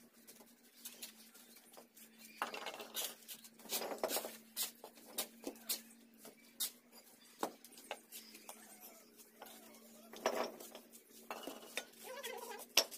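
Steel bricklaying trowels tapping and scraping on fired clay bricks and wet mortar, with bricks clinking as they are set in place: frequent sharp clinks and knocks, and a few longer scrapes.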